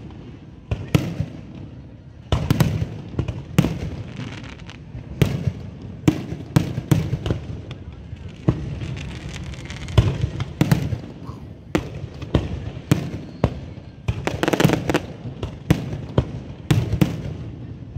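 Fireworks going off in an irregular string of sharp bangs and low booms, often several in quick succession.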